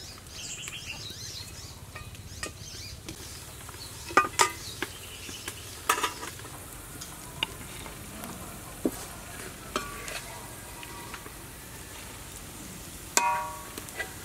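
Metal utensil clinking and scraping against a cooking pot a handful of times over a steady low hiss, with one louder ringing clink near the end.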